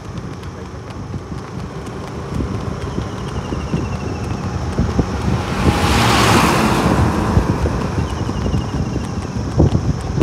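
Road traffic noise with wind on the microphone, and a large truck passing close by about six seconds in, its noise swelling and then fading.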